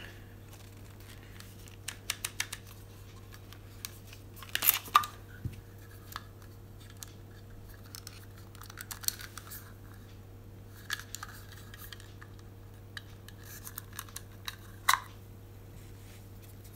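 Macro extension tubes for a Canon EOS mount being twisted and worked apart by hand: scattered clicks and scrapes of the bayonet mounts, with a louder cluster about five seconds in, over a faint steady hum. The mount is stiff and will not release easily.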